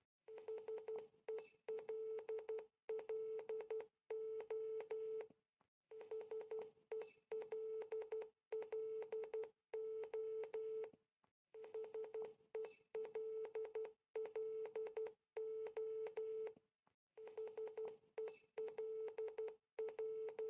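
Morse code beep spelling "HELLO" (.... . .-.. .-.. ---): a single mid-pitched tone keyed into short dots and longer dashes. The word repeats about every five and a half seconds, with a short pause between repetitions.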